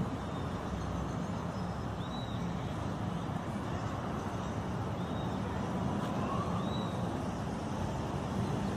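Steady city road traffic noise, with a few faint short high chirps scattered through it.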